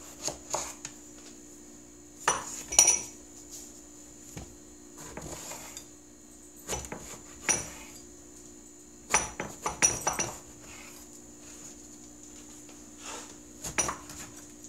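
Kitchen knife slicing eggplant and knocking on a cutting board in irregular clusters of sharp chops, with short pauses between them. A faint steady hum runs underneath.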